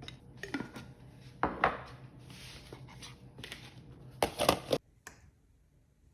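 Kitchen utensils knocking and scraping against dishes or pans in several short bursts, over a low steady hum that cuts off about three-quarters of the way through.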